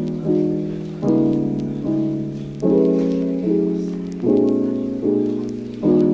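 Background music: soft piano chords, a new chord struck a little under a second apart and fading until the next.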